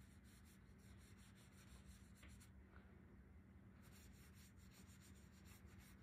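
Faint scratching of a paintbrush stroking watercolour paint onto paper, pausing for about a second midway, over a low steady hum.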